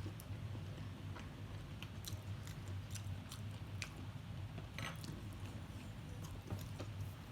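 A person chewing a meal of tater tots and chicken patties, with scattered sharp crunches and clicks of the food and mouth, a louder one about five seconds in. A steady low hum lies under it.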